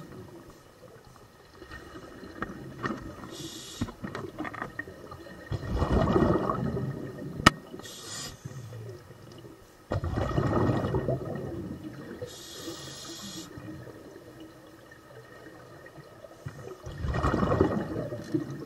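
Scuba breathing heard underwater: three rushes of exhaled bubbles from a regulator, about five seconds apart, with short faint hisses between them. A single sharp click comes about seven and a half seconds in.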